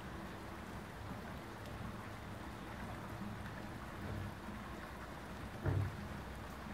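Steady rain falling, an even hiss, with a brief low thump near the end.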